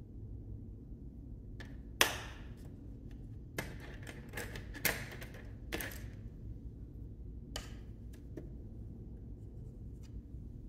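Paintbrushes being set down and handled on a tabletop among other brushes: a handful of light taps and knocks, the loudest about two seconds in, over a faint steady low hum.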